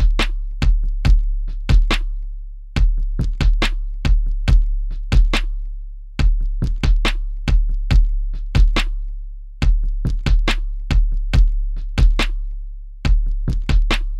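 A looping drum-machine beat: deep bass kicks with long decaying booms, under sharp clicky hits. The same pattern repeats about every three and a half seconds.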